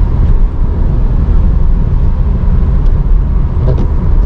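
Steady road noise heard from inside a moving car: a loud low rumble of engine and tyres with a hiss from the tyres running on a wet road.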